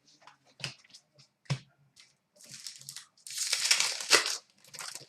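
Trading cards being handled: a few light taps, then about a second of rustling and sliding starting around three seconds in, with a shorter rustle near the end.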